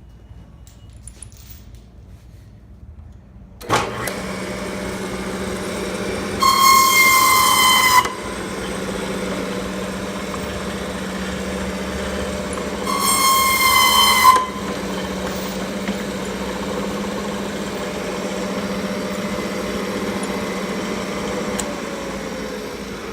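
Hydraulic hose cut-off chop saw: its 3 HP electric motor switches on about four seconds in and runs steadily. The abrasive blade twice cuts into steel-wire-reinforced hydraulic hose, each cut a loud, high-pitched screech lasting about a second and a half. Near the end the motor winds down.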